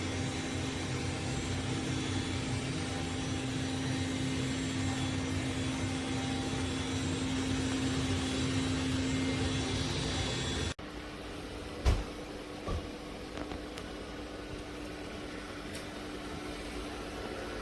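Dreame L10s Ultra robot vacuum running with a steady whirring hum. About eleven seconds in, the sound cuts off abruptly to a quieter steady hum, with a sharp knock a second later.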